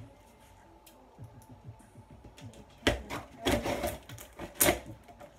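Scissors cutting and scraping through the packing tape on a cardboard box. A few faint clicks come first, then from about three seconds in a run of sharp rasping cuts and scrapes.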